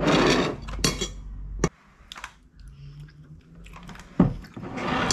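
Metal cutlery clicking and tapping against a ceramic plate and bowl while eating, a few separate sharp taps, with rustling and chewing noises.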